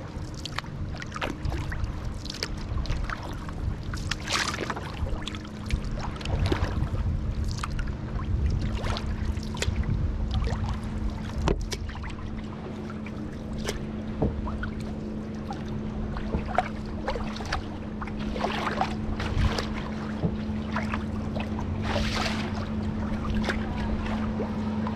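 Canoe paddles dipping and pulling through the water, a swish every couple of seconds, over wind rumbling on the microphone. A steady low hum runs underneath, growing stronger about halfway through.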